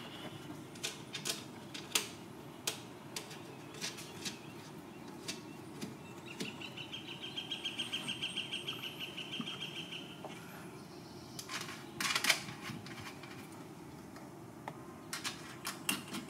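Light clicks and knocks of hands and metal parts working behind a car's tail light, threading the mounting nuts back on, with a louder clatter about twelve seconds in. A bird trills in the background for about four seconds around the middle, a steady high pulsing at about five pulses a second.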